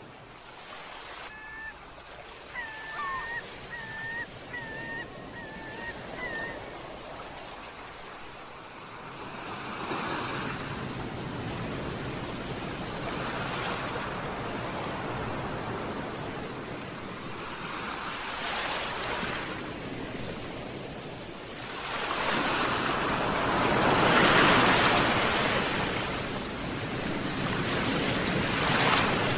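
Sea waves washing onto the shore, swelling and breaking in several surges, the biggest near the end. In the first few seconds a gull gives a quick series of about six short cries.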